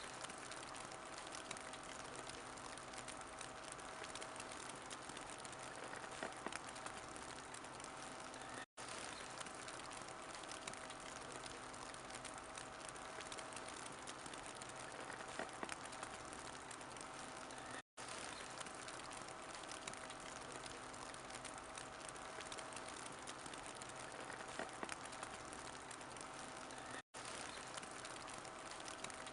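Wood fire crackling in a fireplace: a steady faint hiss scattered with small pops, dropping out for a split second about every nine seconds.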